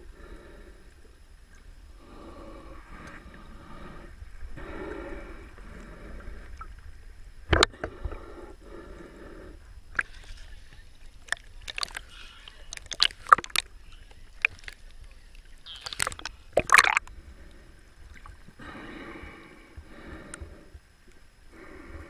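Seawater sloshing and slapping around a camera bobbing at the surface, with a run of sharp splashes through the middle. Soft, muffled underwater sound at the start and again near the end.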